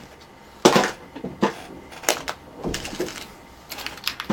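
Small objects being handled and set down on a work surface: a handful of short, irregular knocks and clatters.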